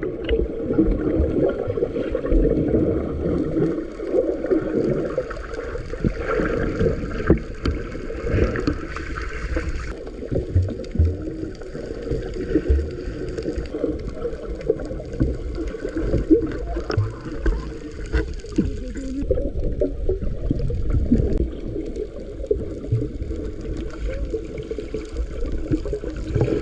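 Muffled sloshing and gurgling of water with a low, uneven rumble and small knocks throughout.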